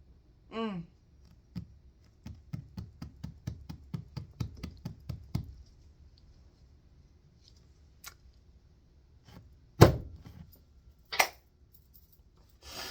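A brief falling voiced sound, then a quick run of sharp knocks for about three seconds, and a single loud thump later on.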